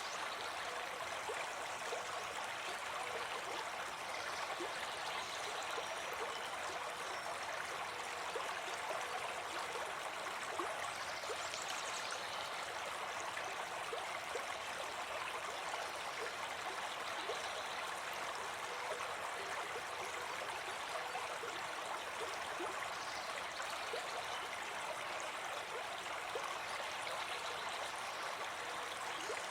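A brook babbling steadily, running water without a break.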